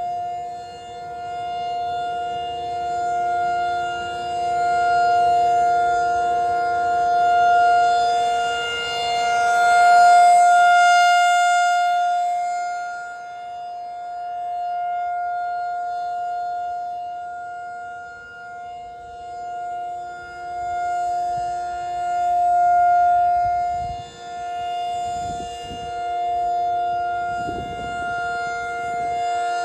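Federal Signal 2001-SRN rotating electromechanical warning siren sounding a steady alert tone. Its single pitch holds level while the loudness swells and fades every few seconds as the rotating horn sweeps past.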